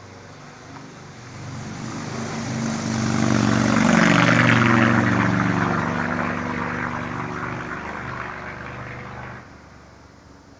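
A passing engine, probably a vehicle's, swelling louder to a peak about four seconds in and then fading, before cutting off abruptly near the end.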